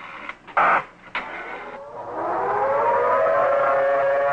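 A few sharp clicks, then an outdoor civil defense siren winds up from about two seconds in, its pitch rising into a loud steady wail: the tornado warning alert sounding.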